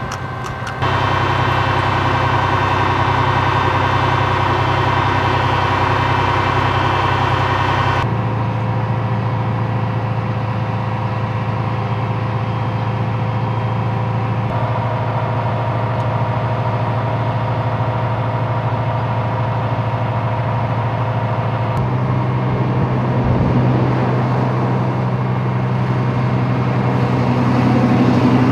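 A heavy vehicle's engine running steadily with a deep, even hum, its tone shifting abruptly about 8 and 22 seconds in.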